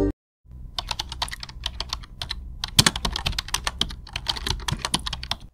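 Computer keyboard typing: a quick, irregular run of key clicks starting about half a second in and going on for around five seconds.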